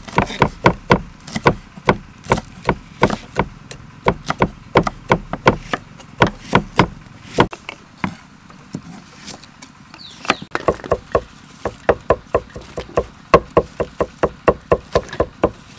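Kitchen knife chopping on a thick wooden chopping block, a quick run of sharp strikes about three to four a second, thinning out about halfway through and then picking up again.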